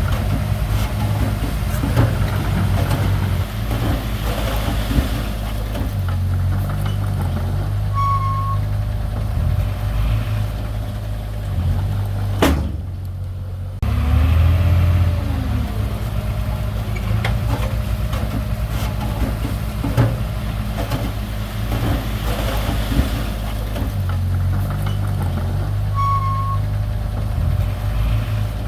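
Heavy-machinery engine running steadily with a deep, even drone, briefly breaking off a little before halfway through.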